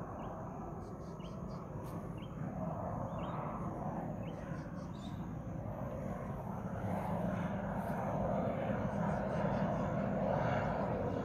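Pilatus PC-21 turboprop trainer's engine, a steady drone that grows gradually louder as the plane approaches. A few short bird chirps in the first few seconds.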